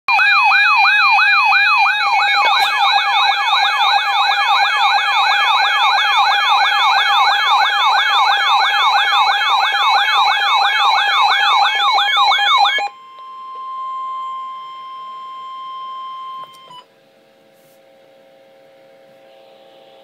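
Several weather alert radios sounding their warbling alarms together for a severe thunderstorm warning, the tones sweeping up and down about three times a second over steady tones. About 13 seconds in the alarms stop and a single steady tone, the NOAA Weather Radio warning alert tone, sounds for about four seconds and cuts off.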